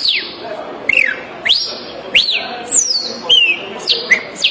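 A man whistling an imitation of the pássaro-preto-soldado's song. It is a series of about eight sharp, slurred whistles, about two a second, most sweeping down from high to lower pitch and a few rising first.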